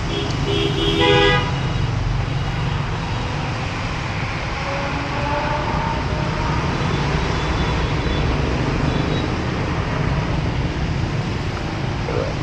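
Road traffic on a wet street: a steady rumble and hiss of passing cars and motorbikes, with a vehicle horn tooting about a second in.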